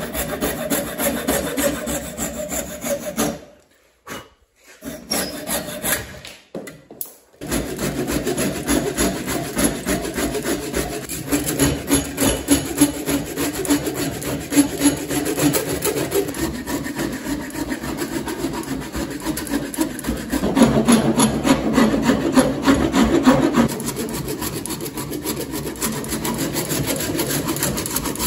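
Hand saw and rasp working a wooden hatchet handle blank clamped in a vise: fast back-and-forth strokes scraping through the wood. The strokes break off twice in the first several seconds, then run on without a pause and grow louder for a few seconds past the middle.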